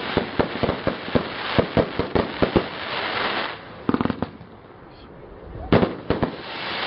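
A 148-shot multi-calibre firework battery firing its shots in rapid succession, sharp reports several a second mixed with crackling bursts, thinning out after about three seconds to a short cluster near four seconds and a last couple of reports near six seconds.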